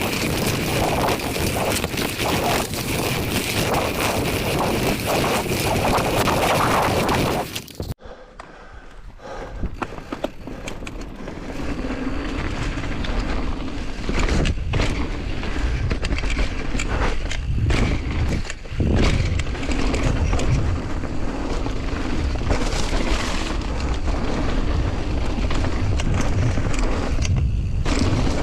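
Mountain bike riding fast down a dirt trail: wind buffeting the microphone, tyres rumbling on loose ground, and short knocks as the bike goes over bumps. The sound cuts off sharply about eight seconds in, then builds back up as the riding picks up speed.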